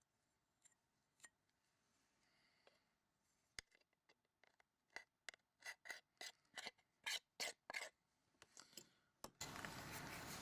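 A small tool scraping in short strokes over a Samsung Galaxy S3's frame, clearing off old adhesive and glass splinters. There is a single click first, then about a dozen quick scrapes in the second half.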